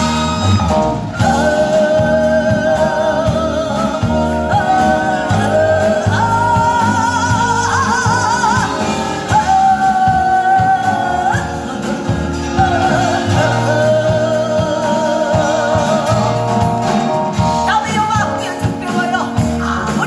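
A woman singing in pansori style, with long held notes and a wide, wavering vibrato, accompanied by a Korean traditional orchestra of bowed haegeum fiddles and gayageum zithers.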